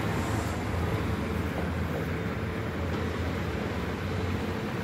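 City street traffic: a steady low rumble of cars and a bus passing on wet asphalt.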